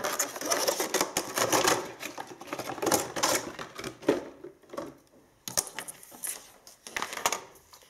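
Clear plastic packaging tray crackling and clicking as a computer mouse is pried out of it. After about four and a half seconds it gives way to sparser clicks and rustles from handling the mouse and its cable.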